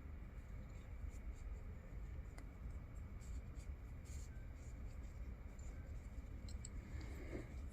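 Faint scratching and scattered small clicks of small metal parts being handled on a Coleman lantern pump plunger, the brass nut going on over the new pump leather, against a steady low hum.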